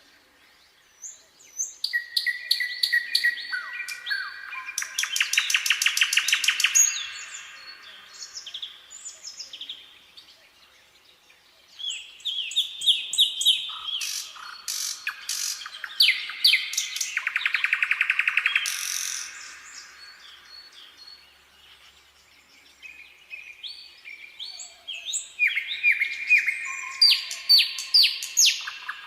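A nightingale singing in three bouts separated by pauses of a few seconds. Each bout is a run of varied whistled phrases and fast, rapidly repeated notes.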